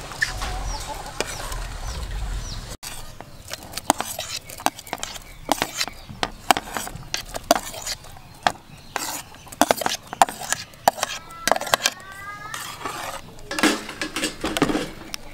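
Metal spoon and ladle clinking and scraping against an aluminium pot and a plate as chopped ingredients are scraped into the broth and stirred, in irregular sharp knocks. A short series of rising chirps near the end.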